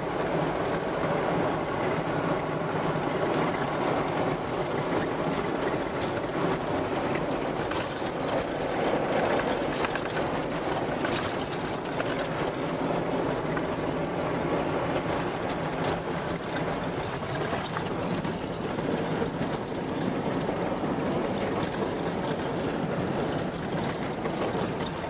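Steady engine and tyre noise inside a vehicle's cabin driving a rough, corrugated dirt track, with the body and fittings rattling and ticking over the bumps.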